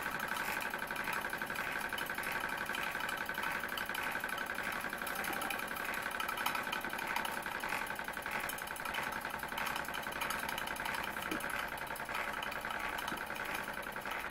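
Bowman M101 model stationary steam engine running steadily with a fast, even beat, on the steam held in its boiler with the burner removed.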